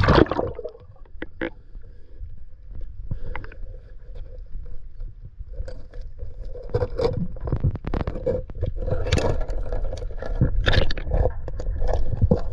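Irregular scraping, knocking and water-movement noises as a person moves through lake water, with a low rumble underneath, busier and louder in the second half.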